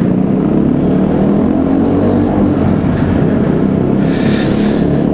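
Aprilia Tuono 125 motorcycle with its stock exhaust running steadily at road speed, heard with heavy wind noise over the microphone. A brief hiss rises about four seconds in.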